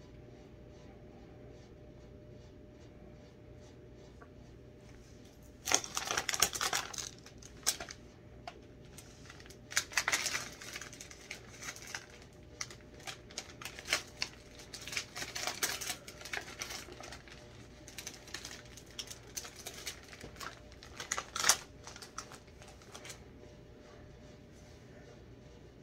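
A plastic cookie package crinkling and crackling as it is handled, in irregular bursts starting about six seconds in and stopping a few seconds before the end, with quieter gaps between them.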